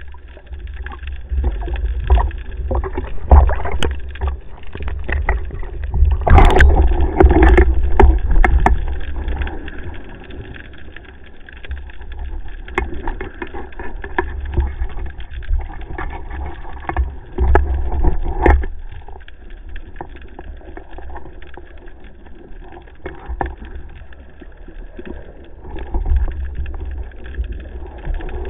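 Muffled water sloshing and gurgling picked up by a camera used underwater, with a heavy low rumble and many scattered clicks and knocks.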